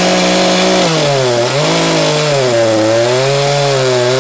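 Echo CS-590 chainsaw, fitted with a CS-620 carburettor and ignition coil, running at full throttle and cutting into a log. Its pitch drops about a second in as the chain bites, then rises and sags again under load. The carburettor is still on its stock settings, and the owner judges it a little rich and in need of leaning out.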